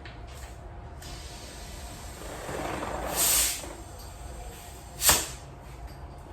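Air hissing at a bicycle tire valve as the tire is inflated, swelling to a short loud hiss about three seconds in, followed by a single sharp click near five seconds.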